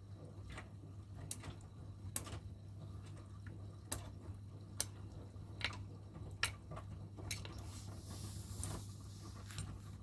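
Miele washing machine running: a steady low hum with light clicks and knocks about once a second at uneven spacing, and a brief hiss near the end.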